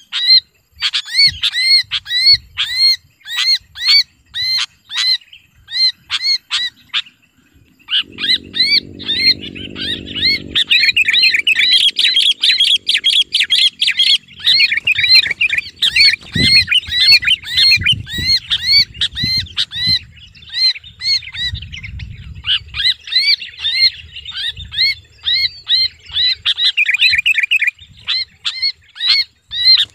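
Sooty-headed bulbul (Pycnonotus aurigaster) screaming in distress while held in the hand: a string of harsh, short, arching calls, about two a second at first, then a dense unbroken run from about eight seconds in. This is the distress scream used as a lure call by bird trappers.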